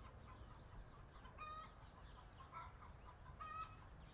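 Domestic hens clucking faintly: three short clucks about a second apart, over a low steady hum.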